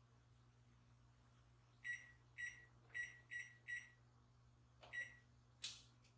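Electric range's control panel beeping as its keys are pressed: six short, identical electronic beeps, five in quick succession and one more about a second later. A brief soft noise follows near the end.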